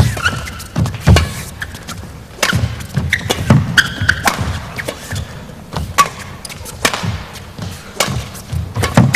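A badminton rally: sharp racket hits on the shuttlecock mixed with players' footfalls thudding on the court floor, several impacts a second throughout.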